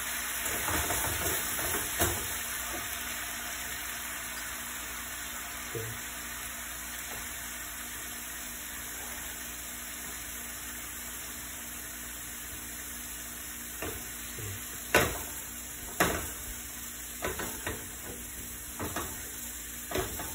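Fish pieces sizzling in a frying pan with a splash of wine, a steady hiss that slowly settles. Several sharp knocks sound in the last few seconds.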